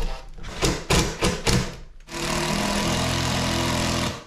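A few short clicks and knocks, then a cordless drill running steadily for about two seconds and stopping suddenly, while holes are drilled or screws driven to fix a wooden handle to a metal-faced door.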